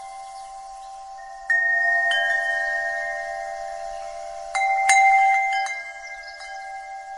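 Wind chimes ringing, their metal tones hanging on and overlapping. New strikes come about a second and a half in and again just after two seconds, then a louder pair past the middle, after which the ringing slowly fades.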